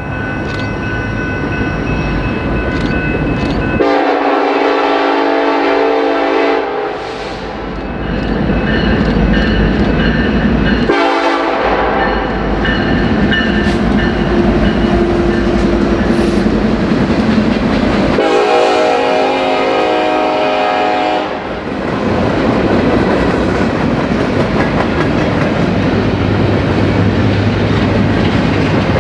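Nathan Airchime K5LLA five-chime locomotive air horn sounding several long blasts, in short clips that cut abruptly from one to the next. After about 22 s the horn stops and only the passing train is heard, its wheels running on the rails with a steady noise.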